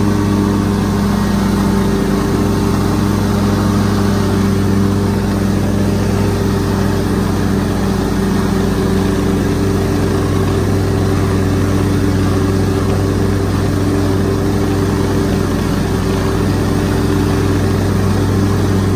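Commercial lawn mower's engine running steadily under load while mowing, one even drone that does not change.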